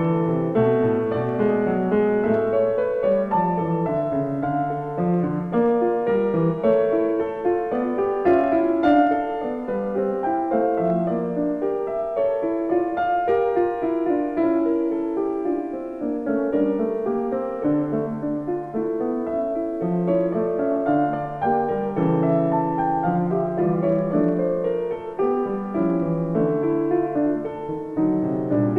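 Background piano music, a continuous melody over low chords.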